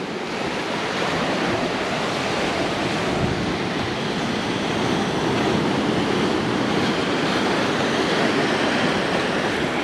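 Pacific surf washing in over the tide-pool rocks with the incoming tide, a steady rushing of water that builds slightly in the first second.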